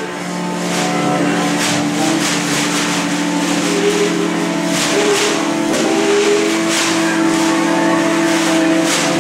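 Free-improvised ensemble music: clarinet and saxophone hold long, droning notes layered over each other, crossed by repeated bursts of rustling, hissing noise.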